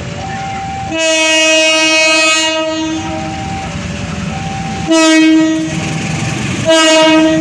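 Air horn of a CC201 diesel locomotive sounding one long blast, then two short blasts, as the train approaches, over the low rumble of its engine. A two-note warning signal alternates steadily underneath.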